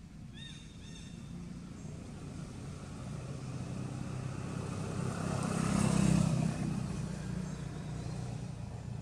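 A motor vehicle passing by: its engine hum grows louder over about six seconds, peaks, then fades again. A few short high chirps sound just under a second in.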